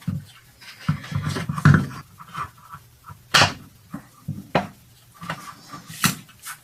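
Plastic engine housing parts of a two-stroke edger being handled and fitted together by hand, with soft rustling and three sharp clicks and knocks.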